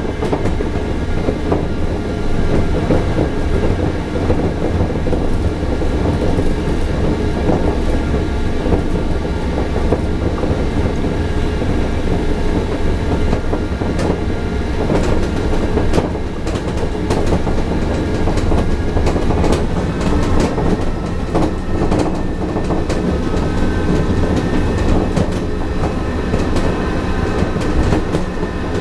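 Running noise heard inside the car of a Bombardier rubber-tyred automated metro train under way: a steady rumble of the tyres on the concrete guideway with a faint steady whine above it. Scattered clicks and rattles come mostly in the second half.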